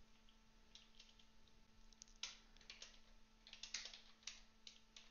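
Faint computer keyboard typing: scattered keystrokes, some in quick little runs.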